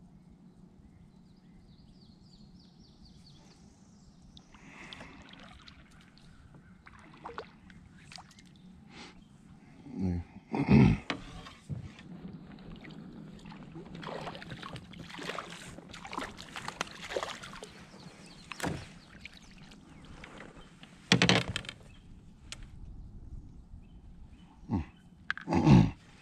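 A hooked bream splashing and thrashing at the water's surface as it is reeled to the side of a small fishing boat and lifted aboard. It comes as a run of short sudden splashes and knocks, with a few louder sudden sounds midway and twice near the end.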